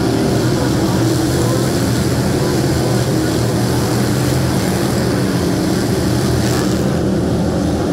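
A pack of dirt-track race cars running at speed around the oval: several engines at once make a loud, steady, overlapping drone.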